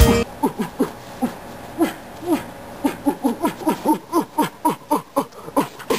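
A voice giving a long, rapid run of short hoots, each dropping in pitch, about three or four a second.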